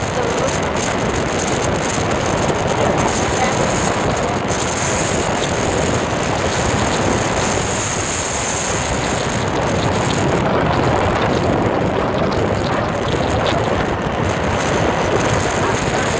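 Steady rush of wind on the microphone mixed with motorbike road noise, riding at speed on a wet road.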